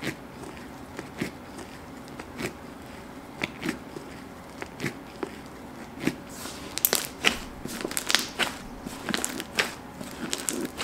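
Fluffy slime being poked and squished with gloved fingers in a clear plastic bowl: irregular short, sharp clicks and pops, coming much thicker from about six seconds in.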